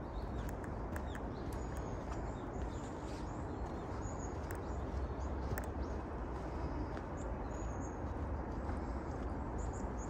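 Footsteps crunching along a forest trail at walking pace, with a few short, high bird chirps over a steady low background rumble.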